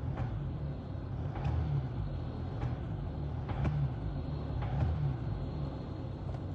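Mercedes OM642 V6 diesel idling unevenly, with a faint knock about once a second. The sound is typical of an injector whose connector has worked loose, so that the cylinder fires only intermittently.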